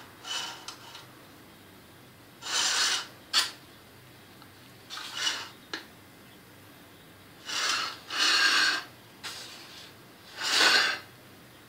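Short rasping scrapes of a knife spreading blueberry topping in a metal springform cheesecake pan, about seven strokes spaced a second or two apart, with a couple of sharp clicks.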